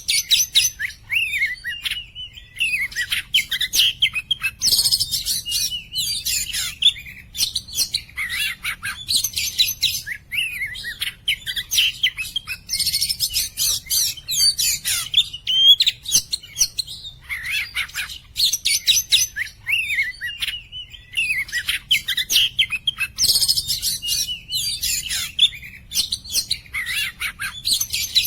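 Oriental magpie-robin (kacer poci) singing without pause: a varied song of clear whistled phrases and sharp chips, with bursts of fast, high chatter about five, thirteen and twenty-three seconds in.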